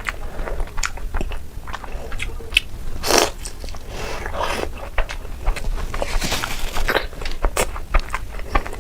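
A person biting into and chewing Indian sweets, with many sharp small crackles and clicks. There is a louder bite about three seconds in and another spell of louder chewing around six to seven seconds.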